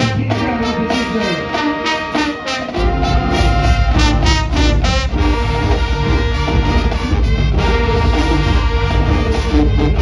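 High school marching band playing: brass section chords over a drumline's steady beat, with a heavy deep bass coming in about three seconds in.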